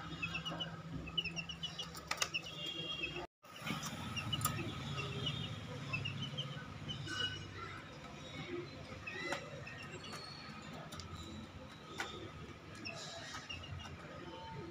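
Baby chicks peeping: short high chirps in quick little runs, with a few light knocks from movement in the wire cage. The sound cuts out briefly about three seconds in.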